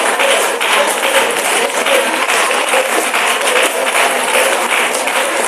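A congregation clapping, with many voices praying aloud at once, making a steady dense din.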